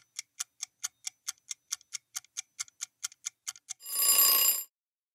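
Countdown timer sound effect: a clock ticking quickly, about five ticks a second, then a short alarm-clock bell ring about four seconds in as the time runs out.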